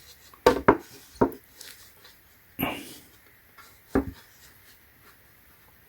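Wooden knocks and bumps of flat-pack nightstand panels being handled and fitted together during assembly: a quick double knock, then a few single knocks a second or so apart.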